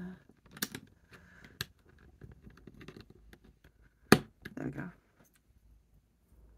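Plastic Lego pieces clicking and tapping as they are handled and pressed together, with one sharp, loud click about four seconds in.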